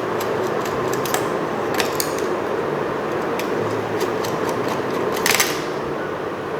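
Small screwdriver backing screws out of a laptop hard-disk mounting bracket: scattered light clicks and metallic ticks over steady background noise, with a brief cluster of louder clicks about five seconds in.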